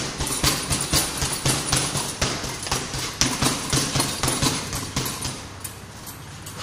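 Boxing-gloved punches striking a hanging heavy bag in quick, irregular combinations, several a second. The punching eases off near the end.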